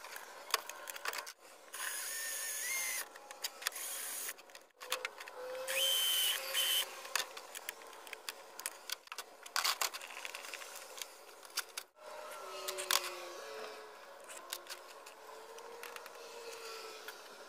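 Cordless drill running in two short bursts, about two and six seconds in, with scattered clicks and knocks from handling the plastic bucket between them.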